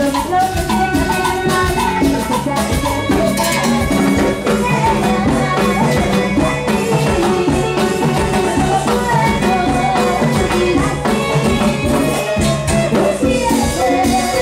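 Live Latin tropical dance band playing, with drums, cymbals and shaker-like percussion keeping a steady beat under a woman singing into a microphone.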